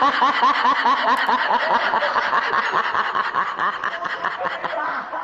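Laughter: a rapid run of short 'ha-ha' pulses, fading out near the end.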